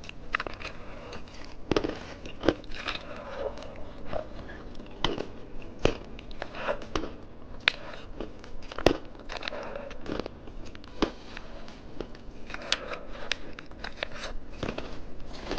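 Candy being bitten and crunched close to the microphone: irregular sharp cracks and crunches, with some crinkling between them.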